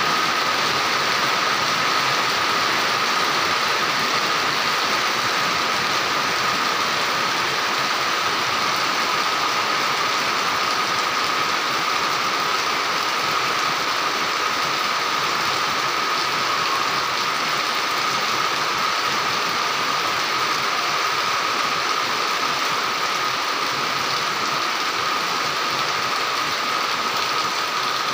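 Heavy rain falling steadily on a waterlogged paved yard and nearby roofs, with runoff pouring off a roof edge, making a steady, even hiss.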